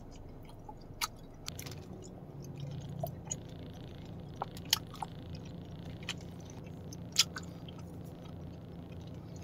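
Chewing soft gummy candy: scattered short, wet mouth clicks and smacks, about a dozen spread irregularly, over a steady low hum.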